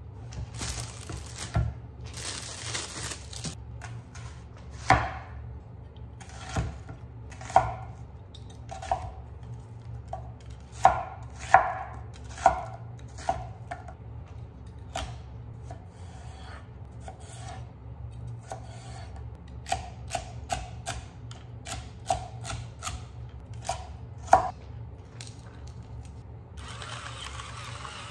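Kitchen knife chopping celery and onion on a wooden cutting board: irregular sharp knocks of the blade on the board, singly and in quick runs. Near the end a salt-and-pepper mill grinds with a short hiss.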